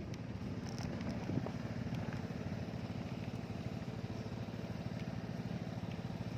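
A small engine idling steadily, with a fast, even pulsing beat.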